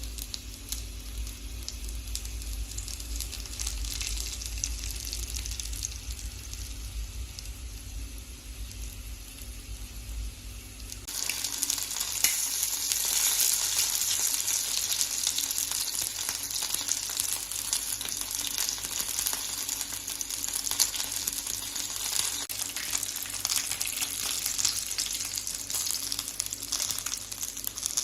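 Chicken wings frying in oil, a steady sizzle that turns suddenly louder and brighter about eleven seconds in. A low rumble runs under the sizzle until that change.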